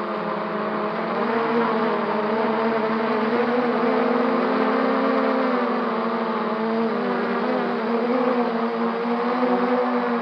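Quadcopter's brushless motors and propellers whining steadily in flight, the pitch wavering a little as the throttle shifts, over a rushing hiss.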